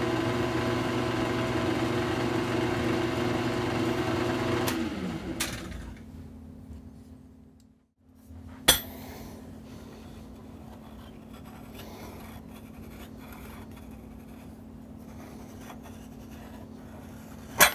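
Benchtop drill press motor running steadily, then switched off and winding down with a falling pitch about five seconds in. After a moment of silence there is a quieter steady hum with a sharp click, and near the end a sharp tap as a steel straightedge is set on the aluminium heat sink.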